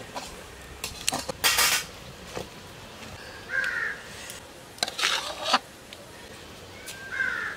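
Scraping and knocking against a steel pot and bowl as thick spinach curry is served out, with a crow cawing twice, about three and a half seconds apart.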